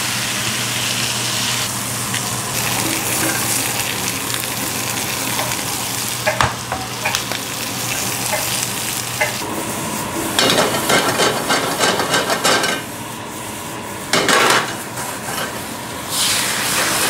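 Beef and sliced onions sizzling in a hot stainless steel pan on a gas burner. Clattery bursts of metal tongs stirring and scraping against the pan come past the middle and again a little later. A low steady hum stops about halfway through.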